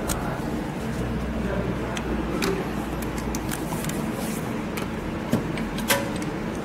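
Steady low background rumble with a few short, light clicks, the sharpest near the end.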